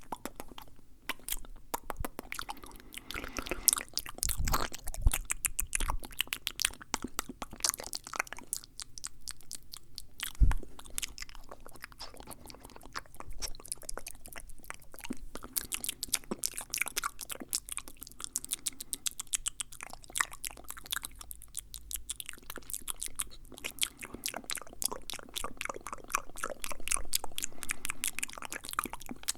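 Fast mouth sounds: a dense, continuous run of quick clicks and smacks, with a few louder thumps, the strongest about ten seconds in.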